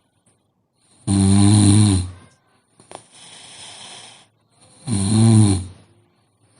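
A sleeping woman snoring: two loud snores, each about a second long and nearly four seconds apart, with a quieter breath between them.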